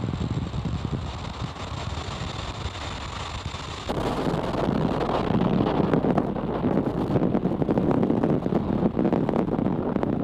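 Falcon 9 first-stage booster's Merlin engine firing on its landing burn and touchdown: a steady, rough rushing noise that turns suddenly louder and fuller about four seconds in.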